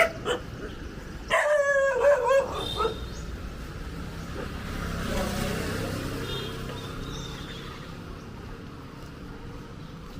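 A dog barking and yelping in a quick run of short, loud calls, over a street background hum that swells and fades as a vehicle passes.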